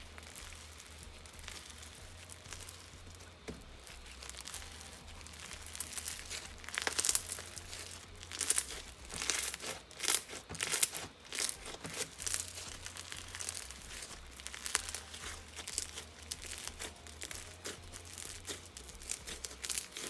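Metallic slime packed with Bingsu beads being squeezed and worked by hand, giving crackly crunches and pops. It is quiet for the first few seconds, then the crunching comes in dense clusters.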